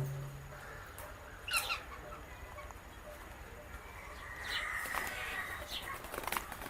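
Pet Psittacula parakeets (an Indian ringneck and Alexandrine pair) calling and clicking: a short squawk about a second and a half in, a longer warbling call near the middle, and a run of quick clicks near the end.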